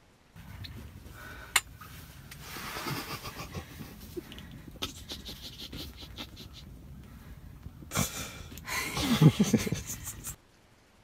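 A woman breathing hard and fast close to a phone microphone, the excited panting of a hunter just after shooting a turkey. A sharp click comes about a second and a half in, and the breaths grow louder, with some voiced sound, near the end.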